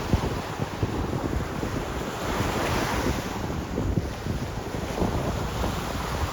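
Wind buffeting the microphone over surf breaking and washing up the beach, with one wave's wash swelling up about halfway through.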